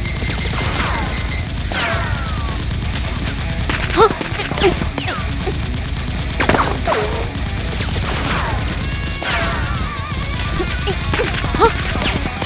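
Action background music with a steady pulsing beat, overlaid with repeated sound effects that sweep down in pitch and a few sharp hits, loudest about four seconds in and near the end.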